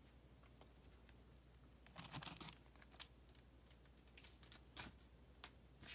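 Near silence, broken by faint crinkling of a comic book's plastic bag as it is handled, about two seconds in and again near five seconds.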